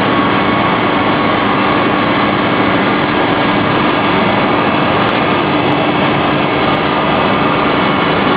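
Semi-automatic double trimming saw for plywood running: its saw motors and blades make a loud, steady mechanical noise that holds even while a plywood panel is pushed through on the carriage for edge trimming.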